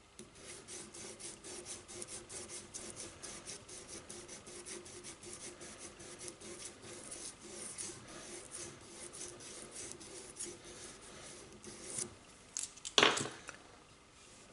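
Hand sanding of the steel chamber mouth and feed ramp of a 1911 .45 barrel with an abrasive rod: quick, even back-and-forth rubbing strokes, a few a second, smoothing out tool marks. They stop about 12 seconds in, and a brief louder scrape or knock follows.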